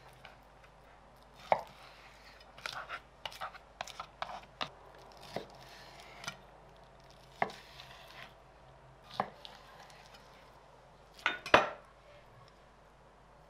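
A chef's knife cutting through raw pork spare ribs between the bones and knocking on a wooden cutting board: a string of irregular sharp knocks and crunches, with the loudest double knock near the end.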